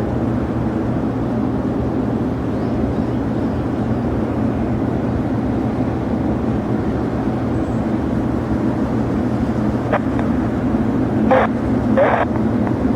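Steady rumble of jet aircraft engines with a few constant low tones. Several short radio clicks come near the end.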